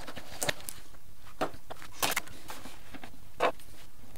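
Handling noises at a workbench: about half a dozen short clicks and taps as model-aircraft parts and tools are picked up and set down, the loudest about three and a half seconds in.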